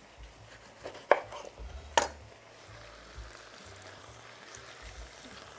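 Chef's knife cutting through a lemon on a wooden cutting board: two sharp knocks of the blade meeting the board, about one and two seconds in.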